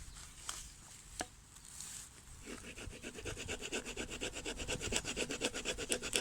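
A couple of light clicks, then from about two and a half seconds in the small folding saw blade of a Gerber MP600 Pro Scout multi-tool cutting into dry wood with quick, even back-and-forth strokes that grow louder.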